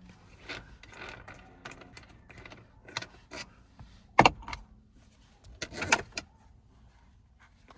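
Plastic clicks and light rattling of interior trim and a wiring connector being worked loose around a car's shifter, with a sharp snap about four seconds in and another cluster of clicks about two seconds later.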